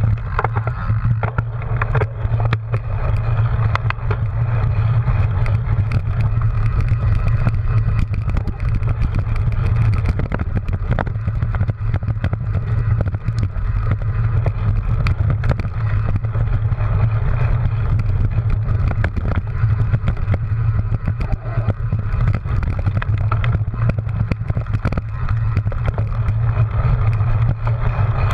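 Wind rumble and road noise from a handlebar-mounted action camera on a cyclocross bike riding over grass and rutted dirt, with frequent sharp knocks and rattles as the bike jolts over the rough ground.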